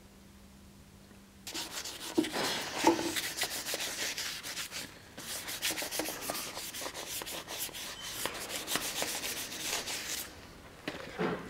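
Gloved hand scrubbing the etched steel bell guard of a cutlass: rapid scratchy rubbing strokes starting about a second and a half in, with a short break about halfway, stopping near the end, then one brief scrub.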